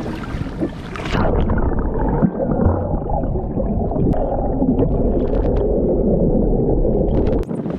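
Water splashing at the surface, then, about a second in, the camera goes under: muffled bubbling and rushing water heard underwater through the camera housing, with all the high sound cut off.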